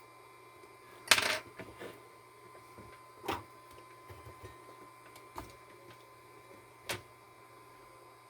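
Scattered clicks and knocks of hard objects: a short clatter about a second in is the loudest, followed by three single sharp clicks spread through the rest. A faint steady high tone and a low hum run underneath.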